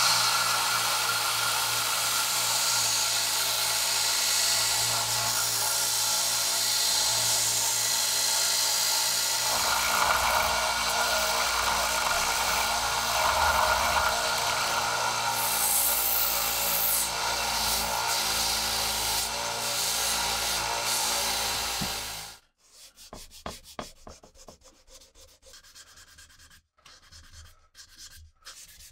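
Central Machinery 1" x 30" belt and 5" disc combination sander running steadily while the hatchet handle is ground against it. About 22 seconds in the machine sound stops suddenly, and quieter, uneven strokes of hand sanding with sandpaper follow.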